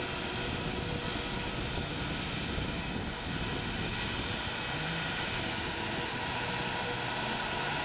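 Jet engines of an Airbus A320-family airliner running steadily while it taxis on the runway.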